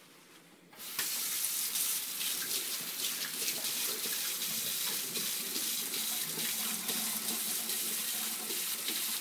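Kitchen faucet turned on about a second in, its pull-down sprayer stream running steadily into a stainless steel sink, with irregular splashing as a Great Dane laps from the stream.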